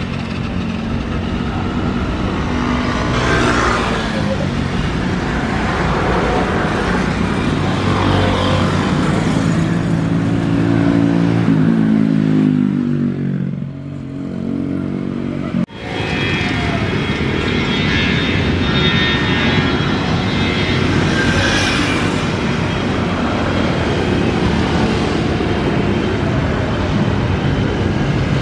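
Rolls-Royce Trent XWB turbofans of an Airbus A350 at take-off power: a steady jet roar with a low drone that slides down in pitch as the airliner climbs away, easing off about 13 seconds in. After an abrupt cut a little past halfway, steady jet engine noise from an Airbus A320 on the runway.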